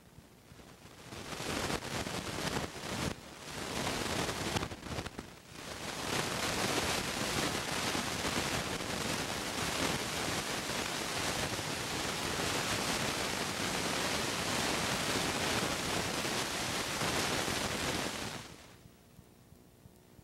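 Loud, steady hiss of static-like noise. It starts about a second in, cuts in and out a few times over the next few seconds, then holds steady until it stops suddenly near the end.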